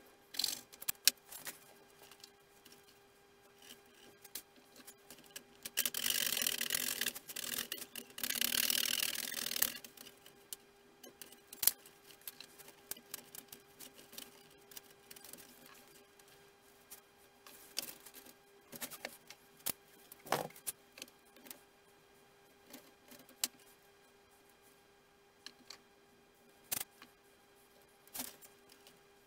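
Hand tools working small model parts on a workbench: scattered clicks and taps, with two scraping strokes of about a second and a half each, starting about six and eight seconds in. A faint steady hum runs underneath.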